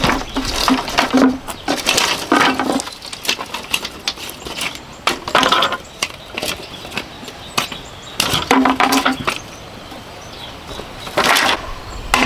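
Green bamboo cracking and splintering as culms are forced through a metal bamboo splitter and the strips are worked apart: about five separate bursts of crackling a few seconds apart, with smaller clicks between them.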